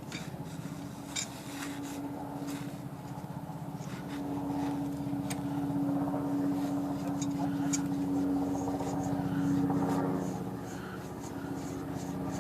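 Typewriter ribbon being wound onto a Royal T1 spool: a steady whirring hum that grows louder in the middle and eases off near the end, with a few light clicks.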